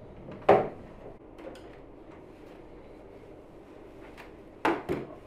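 Wooden dining chairs being set down upside down onto a wooden table top: one sharp knock about half a second in, then two quick knocks close together near the end.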